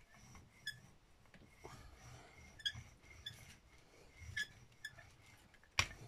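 Rubber brayer rolling paint back and forth across a gelli printing plate, a soft low rumble with faint short squeaks from the roller several times. A sharp click near the end.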